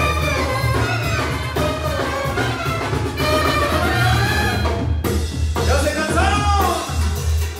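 Loud dance music with drums and a steady heavy bass under a melody line that rises and falls, dipping briefly near the end.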